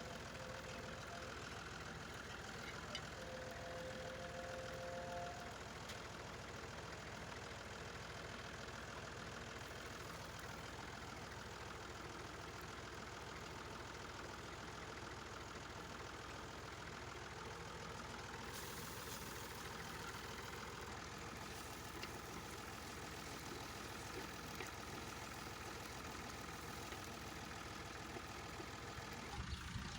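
Ginger-garlic paste frying in hot oil in a clay handi: a steady, quiet sizzle, with a steady low hum underneath.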